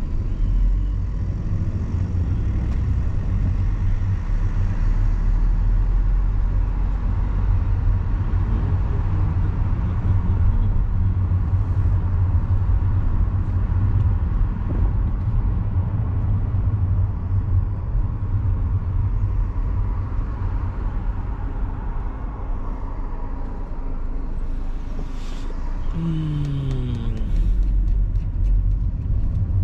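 Steady low rumble of a car's engine and tyres heard from inside the cabin while driving. About four seconds before the end comes a brief falling tone.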